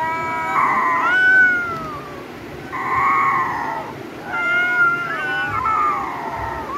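Kittens meowing: a run of about five high, drawn-out mews, one falling in pitch and a couple overlapping in the second half.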